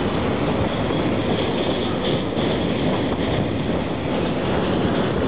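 Freight train's container wagons rolling past, a steady noise of steel wheels on the rails.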